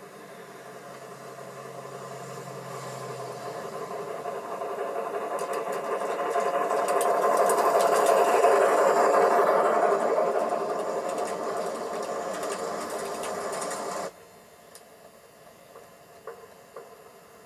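Large-scale model train (a USA Trains Hudson locomotive pulling heavyweight passenger cars) running past, a steady whirring rattle of motor, gears and wheels on the track. It grows louder as the train approaches, peaks about halfway through, eases a little, then stops abruptly about 14 s in.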